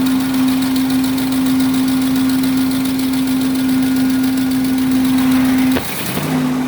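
An RV's gasoline engine running with a little throttle, a steady whine over it, while its ignition timing is being set. Near the end a sharp click, the whine drops out for a moment, then it comes back.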